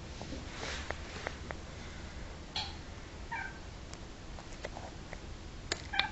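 A domestic cat gives a few short meows, starting about two and a half seconds in, the last and loudest near the end, with some light clicks and taps between them.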